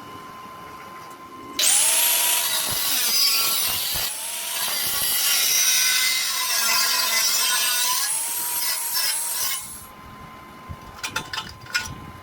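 Stick welding arc burning for about eight seconds, starting a second and a half in: a loud crackling hiss with tones gliding up and down through it. A few sharp taps follow near the end.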